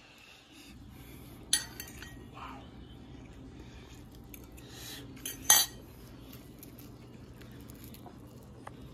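Metal spoon clinking sharply twice, once about a second and a half in and again at about five and a half seconds, over a steady low hum.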